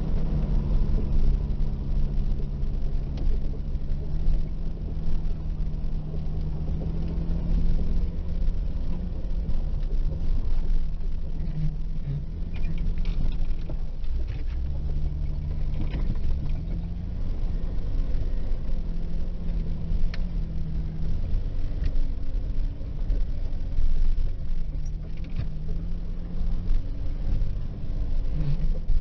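Off-road vehicle's engine running at low, slightly varying speed, heard from inside the cab as it crawls along a snowy trail, with scattered knocks and rattles from the bumpy ground.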